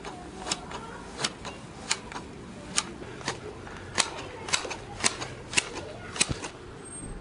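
Hand shears cutting long grass: a run of about ten crisp snips, roughly one every half to three-quarters of a second.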